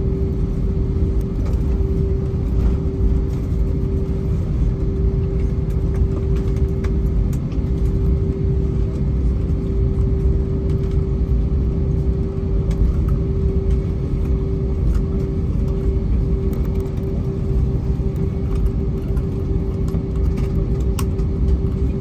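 Jet airliner cabin noise during taxi: a steady low rumble of the engines at idle, with a constant mid-pitched hum and a few faint clicks.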